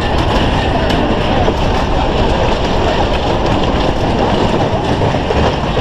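Wooden roller-coaster train rolling and clattering along its track.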